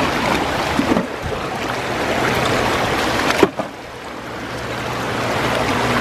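Rushing water of a fast, rocky stream, a steady hiss-like rush. About three and a half seconds in there is a brief knock, the rush drops sharply, and then it builds back up.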